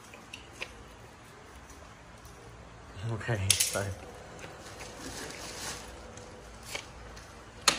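A plastic bag crinkling and rustling as bunches of rambutan are set down on it and handled, with a few sharp clicks. There is a brief voice about three seconds in.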